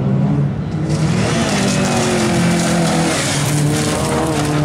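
Autocross car engine running at high revs on a dirt track, its pitch wavering as the driver works the throttle. Loose dirt and gravel hiss from the tyres as the car slides through a corner.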